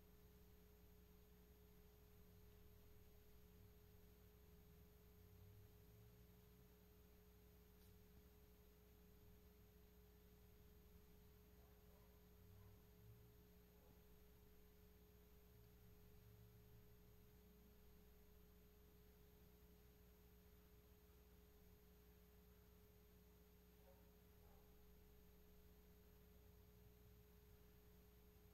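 Near silence: room tone with a faint, steady, thin electrical tone over a low hum.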